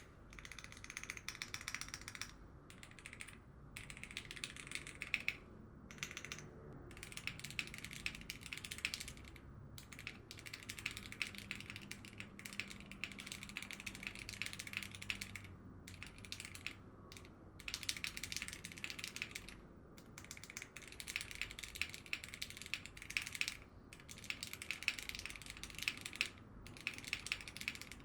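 Typing on a Frog TKL mechanical keyboard with linear Cherry MX Black switches, PBT keycaps, a stock aluminum plate and no foam: steady runs of keystrokes broken by short pauses.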